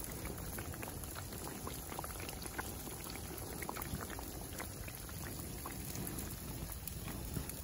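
Chapli kababs deep-frying in a pan of hot oil: a steady sizzle with many small crackling pops.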